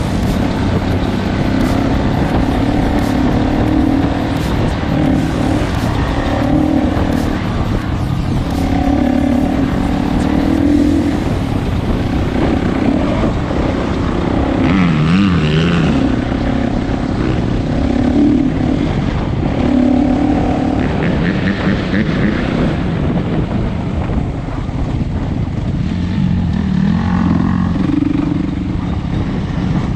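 Dirt bike engine running under load, its pitch rising and falling repeatedly with the throttle and gear changes.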